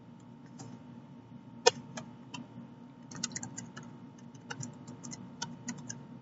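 Computer keyboard typing in short irregular runs of keystrokes, with a few backspace presses among them and one louder key strike about a second and a half in.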